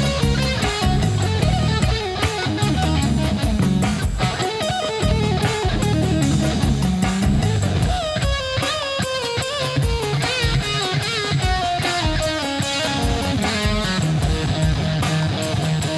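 Electric guitar played through a germanium fuzz pedal, with fuzzy lead lines that bend and waver in pitch from about 8 seconds in, over a drum and bass backing.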